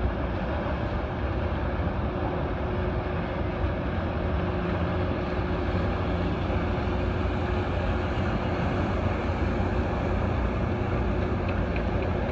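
Leopard 40 catamaran under way under engine power: a steady low drone with wind and water rushing past, unchanging throughout.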